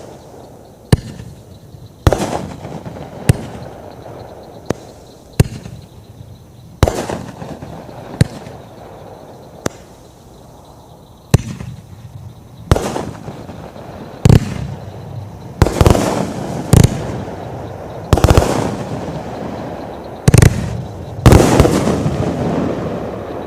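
A 500-gram, 63-shot consumer fireworks cake firing shot after shot, a sharp bang every second or so. The later shots are louder, with longer crackling tails after each burst.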